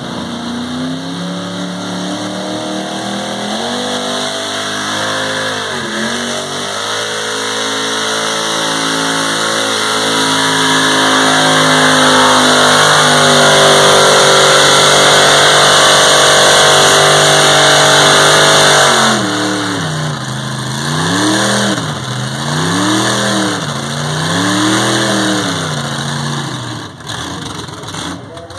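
Ford big-block stroker V8 in a mega truck at full throttle, pulling a weighted sled: the engine note climbs and holds at its highest and loudest for several seconds while the truck wheel-stands. The throttle drops suddenly and the engine is then revved up and down about four times.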